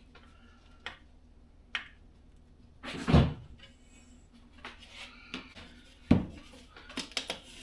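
Hands handling diesel heater parts, making scattered clicks and knocks. There is a louder thump about three seconds in, another about six seconds in, and a quick run of clicks near the end.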